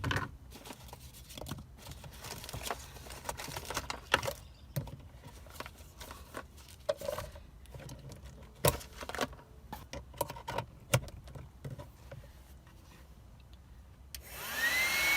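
Scattered clicks, knocks and rubbing as the THISWORX 12 V handheld car vacuum is handled. About a second before the end, its motor switches on, with a loud rushing air noise and a whine that rises as it spins up.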